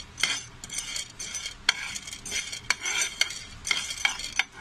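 A spatula stirring dry chana dal in a nonstick pan while it roasts with no oil: a run of irregular, sharp scraping strokes of the spatula on the pan, with the dal shifting about.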